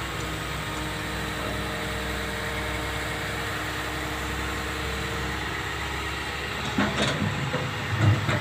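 Old Hitachi tracked excavator's diesel engine and hydraulics running steadily with a low hum. About seven to eight seconds in come a few louder clanks and creaks as the arm presses the bucket down onto the ground.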